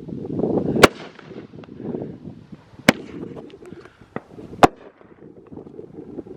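Fireworks going off: three sharp, loud bangs about two seconds apart, with a few fainter pops between them, over a low rumble.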